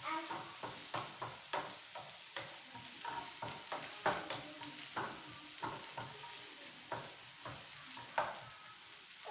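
Food sizzling in a frying pan while a spoon stirs and scrapes it, with a few clinks of the utensil against the pan each second.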